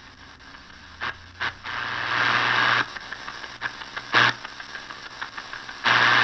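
Static hiss from the Choyong R1 radio's speaker as its tuning knob is turned between stations, coming and going in surges with a low hum under it, loudest near the end.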